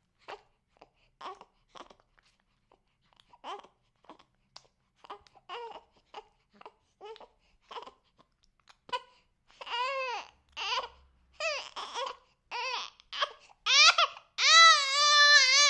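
Six-week-old baby fussing: short, soft whimpers and catches of breath that build from about nine seconds in into loud crying wails, the longest and loudest near the end.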